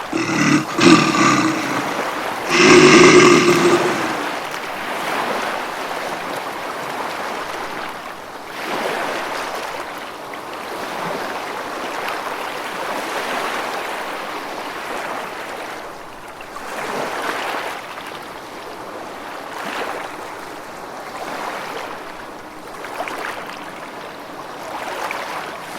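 Two loud, drawn-out pitched cries near the start, each about a second long, followed by a steady rushing noise that swells and eases.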